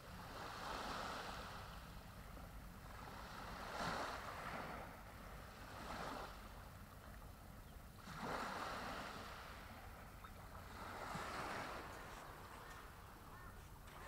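Small waves breaking and washing up a sandy beach among rocks, in gentle surges that swell and fade about every two to three seconds.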